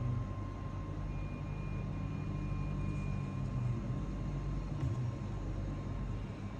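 Steady low background rumble with a faint constant high tone, and a small tick about five seconds in.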